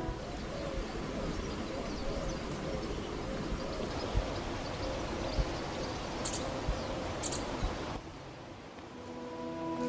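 Outdoor nature ambience: a steady rushing background with two short, high bird chirps about a second apart in the second half. The background turns quieter near the end.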